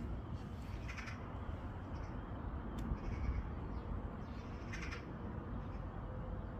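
Steady low outdoor rumble, with two short bird calls, one about a second in and another about five seconds in.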